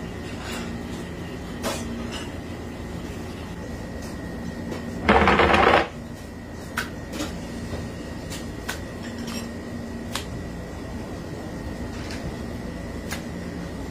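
A round wooden serving board scraped across a plastic worktop, heard about five seconds in as a loud rasping rush lasting most of a second. Around it are scattered soft clicks and knocks from octopus being handled on the worktop, over a steady kitchen hum with a faint high whine.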